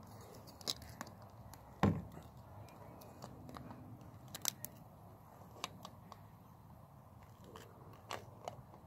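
Metal snips cutting into the thin sterling silver shell of a weighted candle holder: a scattering of sharp snips and clicks at irregular intervals, the loudest about two seconds in.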